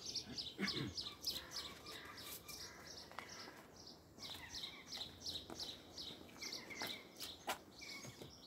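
Small garden songbirds singing: quick runs of short, high chirping notes, each falling slightly in pitch, with brief pauses between runs.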